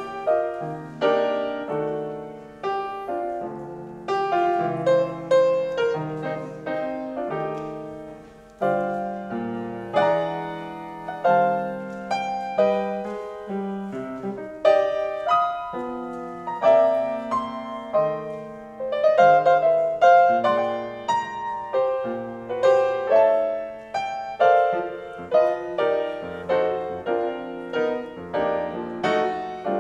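Grand piano played solo, with chords and melody notes struck one after another, each ringing and then fading.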